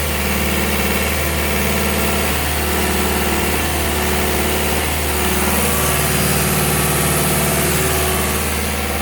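Olin 575 trailer concrete pump running steadily while pumping, its engine hum shifting in a regular pattern about once a second as the pump strokes.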